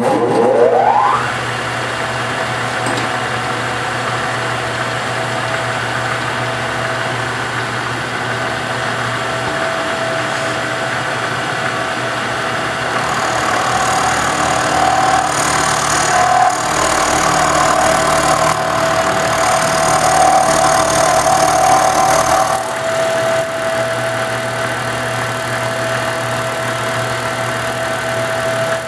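Milling machine spinning up with a rising whine, then running steadily as its end mill cuts a step into a wooden banjo neck heel. For about ten seconds past the middle the cut grows louder and harsher, then it settles back to a lighter steady run.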